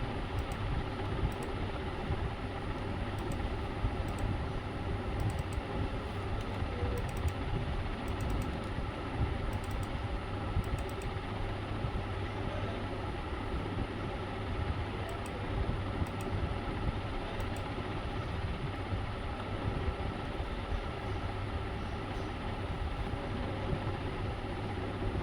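Steady mechanical hum and hiss with a low drone, and faint scattered clicks, mostly in the first half.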